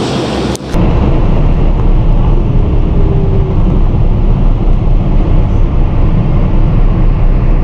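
Electric passenger train running, heard up close as a loud, steady low rumble. It begins abruptly about half a second in, replacing a hissier train noise with a faint whine.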